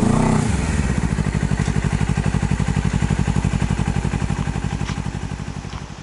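Honda CBR250RR motorcycle engine slowing to a stop: its pitch dips at the start, then it settles into a steady, even idle beat that gradually gets quieter.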